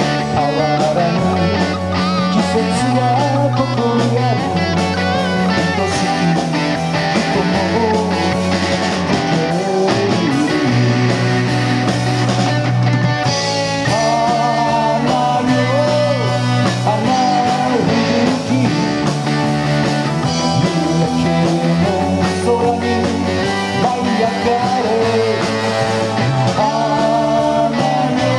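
Live rock band playing: electric guitars, electric bass, drum kit and keyboard, with a guitar line bending in pitch over a stepping bass line.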